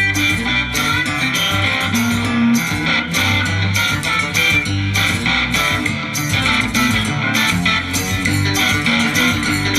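Guitar-led music with bass and a steady beat, played loud through the speakers of a 1998 Sony LBT XB50 400 W hi-fi system.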